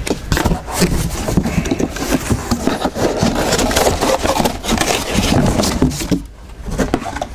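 Cardboard box and paper packing being handled and pulled out: a dense run of scraping, rubbing and crackling with small knocks, easing off briefly about six seconds in.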